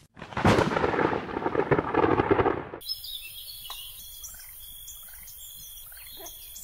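Audio-drama sound effect: a loud crackling rumble like thunder for about two and a half seconds that cuts off abruptly, followed by a quieter steady hiss with faint short chirps.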